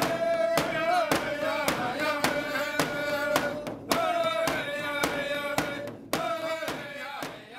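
Alaska Native drum song: a frame drum struck with a thin stick in a steady beat of about two strikes a second, under voices chanting a long held note that bends at the ends of phrases. It fades out near the end.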